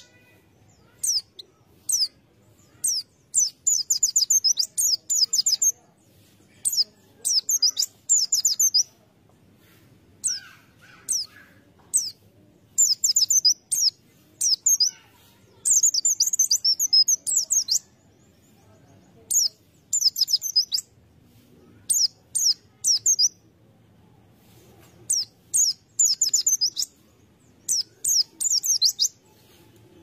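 White-eye (pleci) singing: bursts of fast, high-pitched twittering song a second or two long, broken by short pauses and single sharp chirps.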